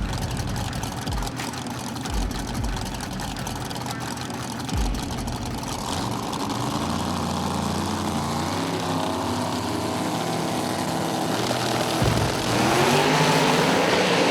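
Drag-racing cars' engines running at the starting line while staging, getting louder with a rising rev about twelve seconds in.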